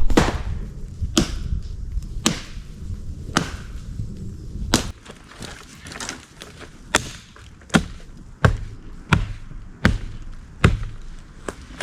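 Dry low branches being chopped off a tree with sharp, separate strikes on wood, about one a second with a short pause midway.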